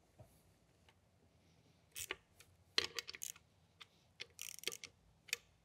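Irregular metallic clicks and taps of a hand tool working the bolts on a cast roof-drain clamping ring as they are snugged down, starting about two seconds in and coming in short clusters.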